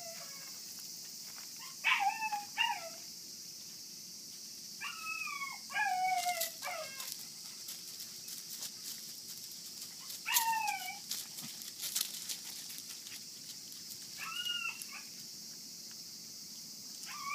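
Kishu–Shikoku cross puppies, about 40 days old, giving short high yelps and whines while play-fighting. There are about seven calls in a few groups seconds apart, most falling in pitch.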